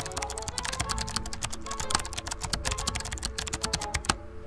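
Rapid typing on a laptop keyboard, keys clicking many times a second, stopping about four seconds in, over steady background music.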